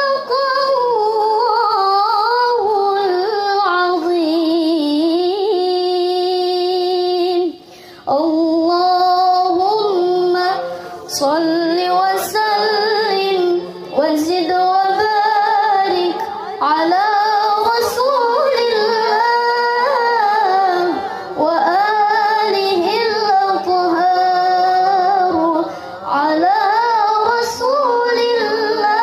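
A young woman reciting the Qur'an in melodic tilawah style into a microphone, unaccompanied: long held, ornamented phrases with short pauses for breath, the clearest about eight seconds in.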